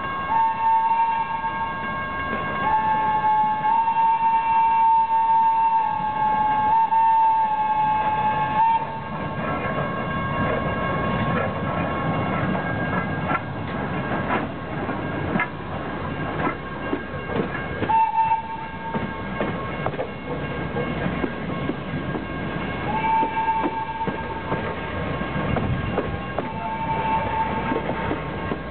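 A steam-style train whistle sounding one long blast of about nine seconds, then shorter blasts later on. The passenger coaches rumble past with wheels clacking over the rail joints and the road crossing.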